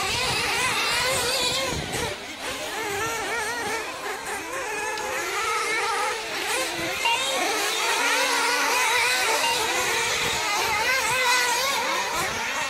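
Several 1/8-scale nitro RC buggies' small two-stroke glow engines revving, their high-pitched whine rising and falling over and over as the cars accelerate and brake around the track.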